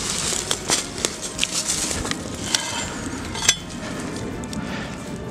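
Footsteps crunching through dry leaf litter and twigs, with several sharp metallic clinks, the loudest two ringing briefly about two and a half and three and a half seconds in.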